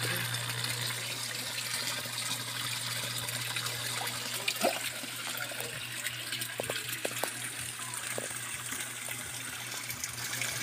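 Water pouring steadily into a koi pond from an inflow, splashing on the surface, over a low steady hum.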